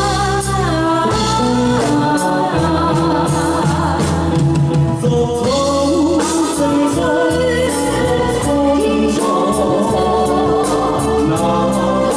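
A man and a woman singing a Cantonese pop duet into microphones, backed by a live band of drums, electric guitar and keyboard.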